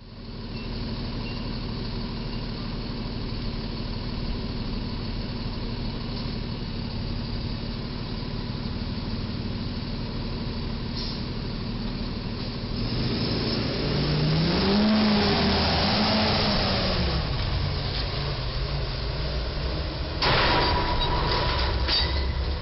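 Steady road traffic rumble, then a truck engine that rises and falls in pitch. About two seconds before the end comes a sudden metallic bang with ringing: a box truck's roof clipping the steel overheight crash beam.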